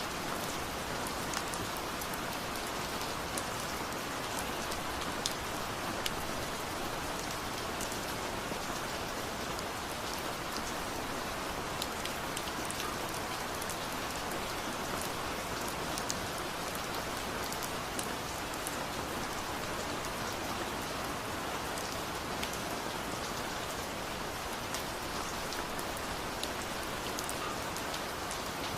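Waterfall: a steady rush of falling water, with many small splashing drips and ticks scattered over it.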